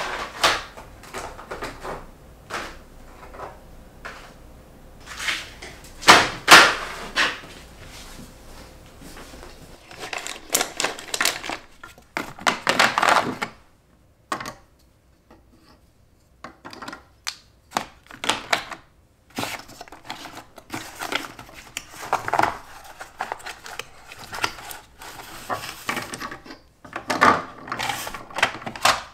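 Art supplies being packed on a wooden tabletop: pastel sticks clicking and rattling as they are laid into a small box, while plastic cases and a cardboard box are handled and set down. The result is irregular clatters and knocks, with a short quiet gap midway.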